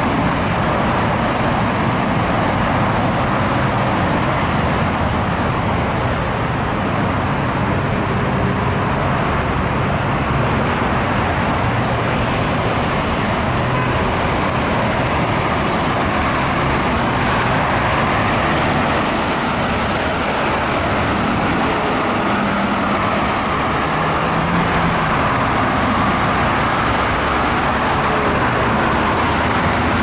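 Steady road traffic on a multi-lane road: cars, trucks and a bus driving past with a continuous hum of engines and tyres.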